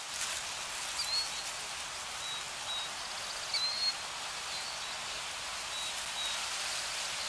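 Outdoor nature ambience: a steady, even hiss with a few short, high bird chirps scattered through it.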